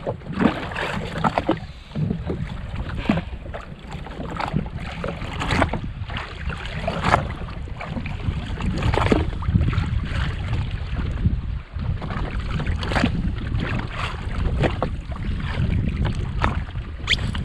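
Wind buffeting the microphone and water slapping against the hull of a drifting jet ski, with many irregular short splashes and knocks.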